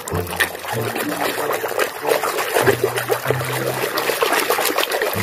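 Water trickling and splashing as a muddy toy race car is washed clean, with a steady run of small splashes and drips.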